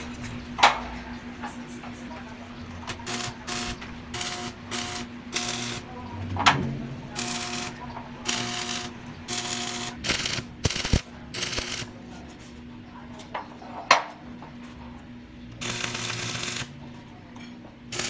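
Stick (arc) welding: a series of short crackling, hissing bursts as the electrode arc is struck and held for tack welds on steel tube, with a longer burst near the end, over a steady hum. A few sharp metallic clicks stand out.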